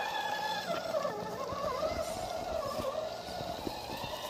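Electric motor whine of a scale RC crawler truck, its pitch wandering up and down as the throttle is fed in and eased off while it crawls over roots and rocks.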